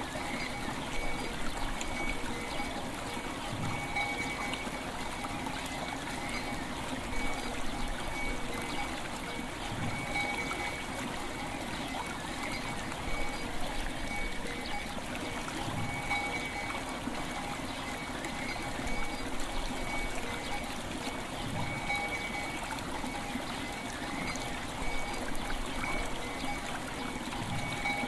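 River water flowing and trickling steadily. Faint bell tones ring under the water, swelling about every six seconds.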